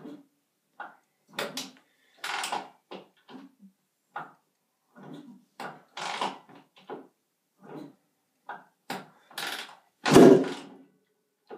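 A single kick-start stroke on a 1999 Honda CR125's 125cc two-stroke single about ten seconds in, a thump that does not fire the cold engine. It is surrounded by short, irregular puffs of noise.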